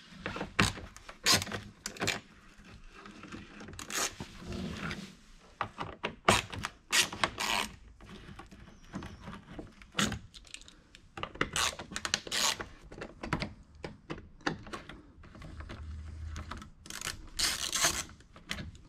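A T25 Torx driver backing out the fog light mounting screws in a plastic bumper: irregular clicks, taps and short scrapes of the tool working.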